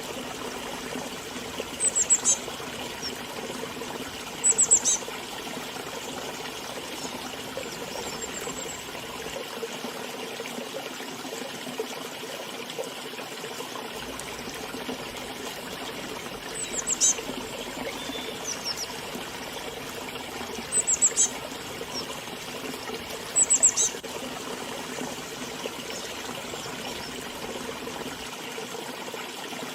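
River water running steadily, with a small bird giving short, high, downward chirps every few seconds, often two or three in quick succession.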